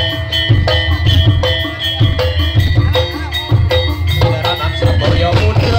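Jaranan senterewe music played loud: heavy drum beats about twice a second under a repeating bright, high melody line.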